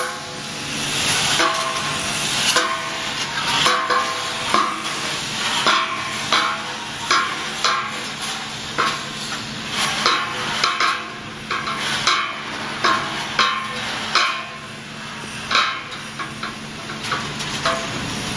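Automatic heavy steel reinforcing-mesh welding machine running: irregular sharp clanks and hissing bursts, about one to two a second, from its pneumatic welding heads and wire feed, over a steady machine hum.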